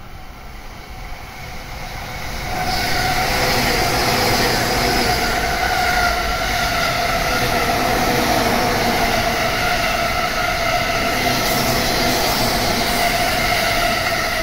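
E531 series electric commuter train passing through a station at high speed without stopping. Its sound builds over the first two or three seconds, then holds as a loud, steady rush of wheels on rail with sustained humming tones while the cars go by.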